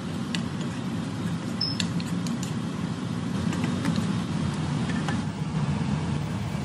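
Minced meat and peppers sizzling in a steel wok as a wooden spatula stirs them, with scattered light clicks of the spatula against the metal, over a steady low rumble.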